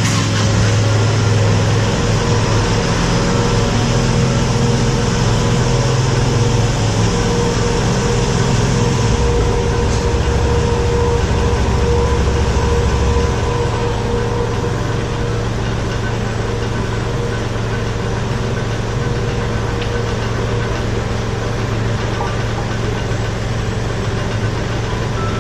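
Kubota L3901 tractor's diesel engine idling steadily, easing slightly in level about halfway through.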